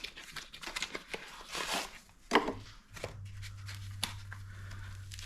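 Clicks and rustling of a motorcycle headlight assembly being handled while an LED bulb is fitted, with one sharp click a little over two seconds in. From about three seconds in, a steady low hum runs underneath.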